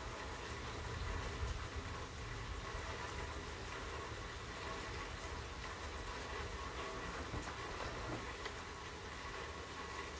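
Steady rain falling, with a low rumble of distant thunder that swells about a second in and then carries on quietly underneath.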